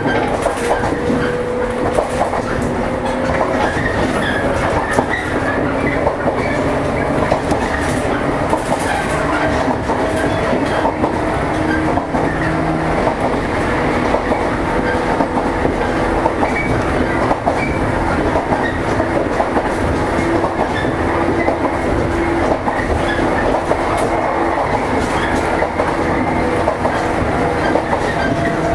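JR East 115 series electric train running, heard from on board: a steady rumble with a motor and gear whine that rises slowly in pitch as the train gathers speed. Wheels clickety-clack over rail joints.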